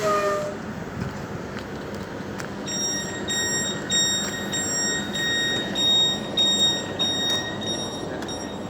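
Door-closing warning beeps of a Class 377 electric train: a fast run of high, evenly repeated beeps starting a few seconds in and lasting about five seconds, signalling that the doors are about to close. Under them is the steady hum of the standing train.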